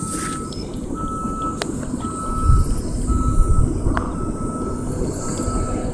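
A vehicle's reversing alarm beeping steadily, one half-second beep about every second, over a low rumble.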